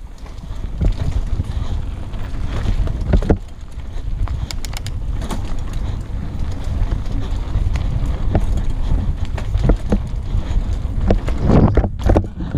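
Wind buffeting the microphone and the rattle of a downhill mountain bike running over a rough dirt trail, with frequent sharp knocks and clicks from bumps and roots.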